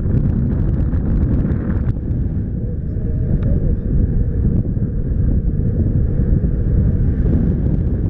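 Steady, loud wind rumble buffeting the camera's microphone from the airflow of a paraglider in flight, with a few faint ticks in the first couple of seconds.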